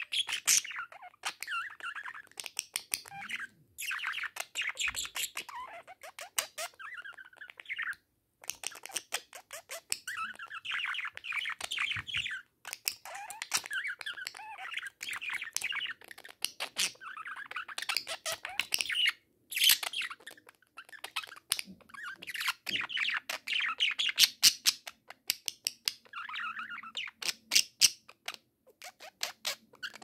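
Pet budgerigars warbling and chattering at a mirror: a busy, near-continuous stream of chirps, squeaks and clicks with a few brief pauses.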